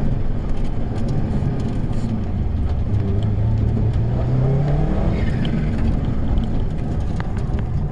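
Rally car engine heard from inside the cabin under hard acceleration. The revs climb from about halfway through, over heavy road and tyre noise, with scattered sharp ticks.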